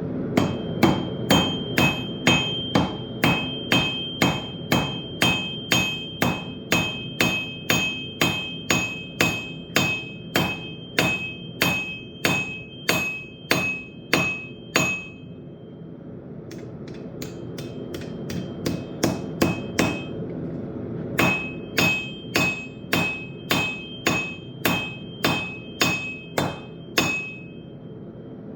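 Blacksmith's hammer striking hot steel on an anvil while forging a railroad knife: steady blows about two a second, each with a bright metallic ring. The blows stop for about six seconds midway, then resume for a second run, over a steady background rumble.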